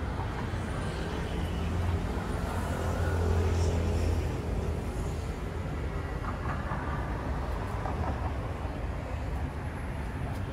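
City traffic noise, with the low rumble of a passing vehicle swelling louder about two to four seconds in.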